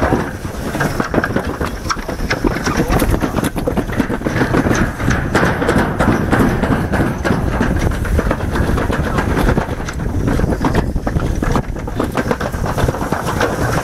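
Toboggan sled running fast down a stainless-steel chute: a loud, steady rolling rumble with rapid rattling clicks throughout.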